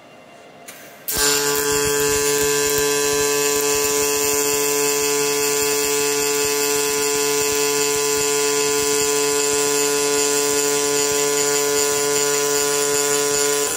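Robotic MIG welding arc: about a second in, the arc strikes and runs as a steady pitched hum with a hiss while the torch lays a continuous weld bead, then cuts off suddenly at the end.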